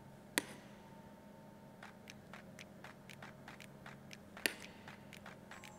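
Metal spoon clinking and scraping against a small stainless-steel saucepan and a ceramic bowl as sauce is spooned out: two sharper clinks, about half a second in and about four and a half seconds in, with a run of light ticks between them.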